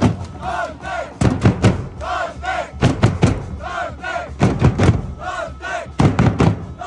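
A crowd of fans chanting in rhythm to a bass drum: two drum beats, then a two-syllable shout from the crowd, repeating about every second and a half.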